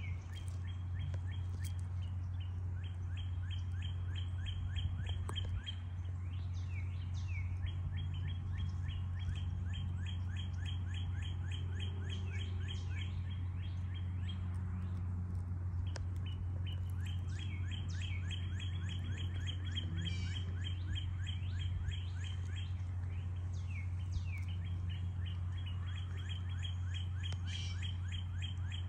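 Outdoor ambience of chirping: fast, even trains of high chirps running on for seconds at a time, with a few down-slurred calls mixed in, over a steady low hum.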